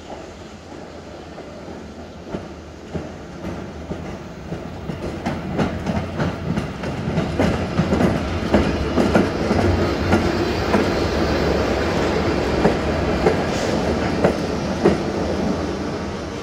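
ČD class 163 electric locomotive approaching and rolling by, its wheels clattering with irregular sharp knocks over rail joints and points. The rumble grows louder over the first half, then holds and eases a little near the end.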